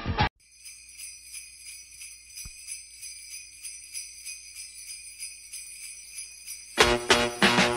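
Sleigh bells jingling in a steady rhythm on their own, high and bright, as the intro of a Christmas song. About seven seconds in, the full band comes in with a strong beat.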